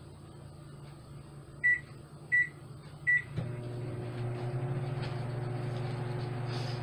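Microwave oven keypad beeping three short times as the cooking time is entered, then the oven starting about three and a half seconds in and running with a steady hum.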